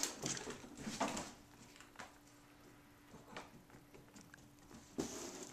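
A few scattered light knocks and taps on a hardwood floor: a cat's paws as it dashes after a thrown toy and trots back, the sharpest knock at the start and another about a second in.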